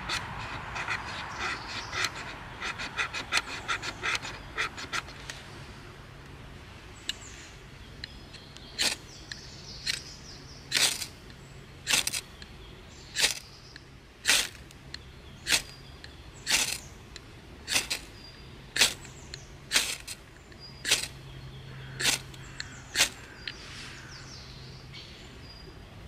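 Ferro rod from a Wolfgangs Ambulo kit struck with the spine of a knife: a sharp scrape about once a second, some fourteen strokes, each throwing plenty of sparks. Before the strikes come a few seconds of quick, light scraping.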